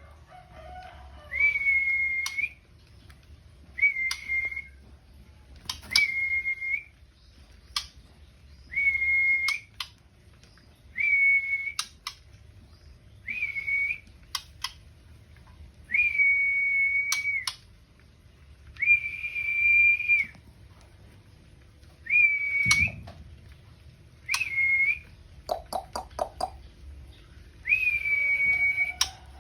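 A female white-rumped shama giving a level, steady whistled note every two to three seconds, each held from about half a second to a second and a half, with sharp ticks in between.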